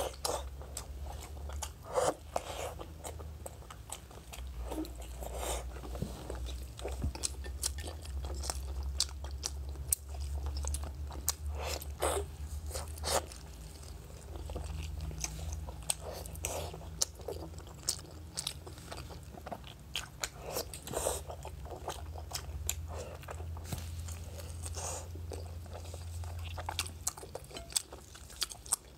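Close-miked biting and chewing of a thick slab of pork belly, with many sharp, short crunches scattered through the chewing.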